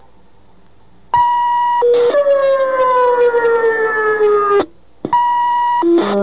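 Fire dispatch radio alert tones: a steady high tone, a brief lower tone, then a long tone sliding slowly down in pitch that cuts off abruptly. After a short gap the sequence starts again.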